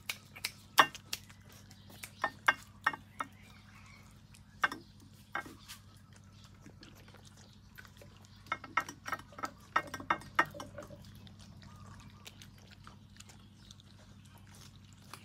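A dog eating: sharp crunching and clicking chews in irregular bursts, clustered in the first three seconds, around five seconds in and again from about eight and a half to eleven seconds in, over a steady low hum.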